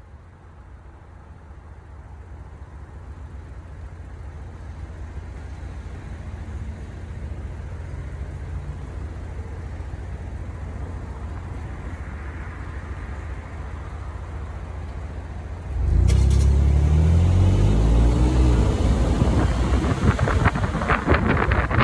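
Low engine rumble growing steadily louder, then jumping much louder about sixteen seconds in, with a rising engine note.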